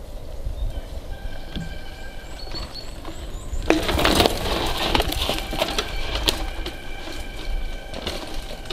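Mountain bike tyres skidding and scraping through loose dirt and leaf litter as a rider leans hard through a corner close by, a sudden burst about four seconds in that lasts a second or so. Low wind rumble runs under it.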